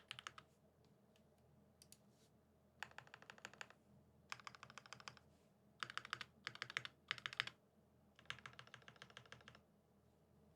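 Typing on a Satisfaction75 mechanical keyboard with lubed vintage Cherry Top SP Star switches on a brass plate. Short bursts of rapid keystrokes come with brief pauses between them, plus a few single key presses about two seconds in. The keyboard is quiet near the end.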